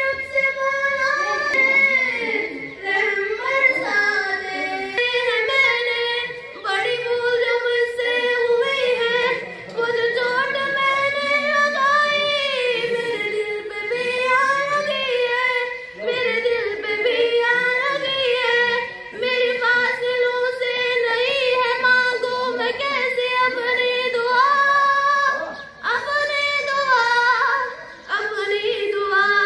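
A schoolgirl singing solo in a slow melody, holding long notes that waver slightly in pitch. She breaks off briefly for breath every few seconds.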